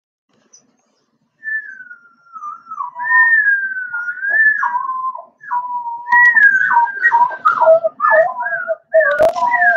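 Recorded wolf pups howling: high, wavering howls that glide downward, starting about a second and a half in, with several voices overlapping in a chorus over the last few seconds.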